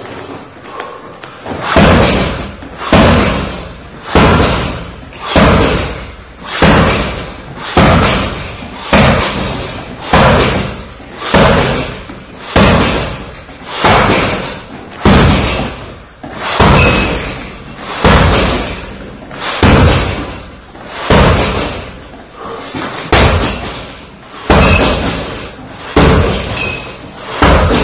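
Barefoot shin kicks slamming into a heavy punching bag, one about every second and a bit, over twenty in a steady rhythm, each thud ringing briefly in the gym hall.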